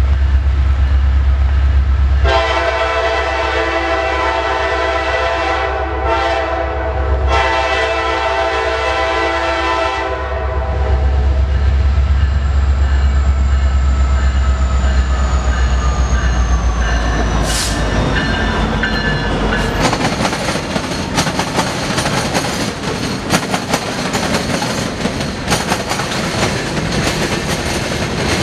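Diesel freight locomotives led by a Norfolk Southern SD60E approach with a deep engine rumble, and the horn blows in blasts for about eight seconds. A faint tone then falls slowly in pitch as the locomotives go by. After that come the rattle and clickety-clack of freight cars rolling past over the rails.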